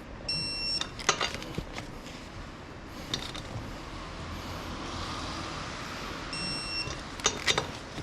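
A short high electronic beep, heard twice about six seconds apart, each followed a moment later by a few sharp clicks.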